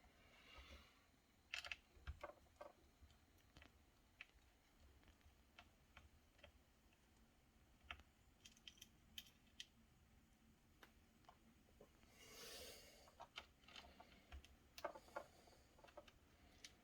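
Faint, irregular small clicks and taps of plastic laptop parts being handled, with a short rustling scrape near the start and another around twelve seconds in.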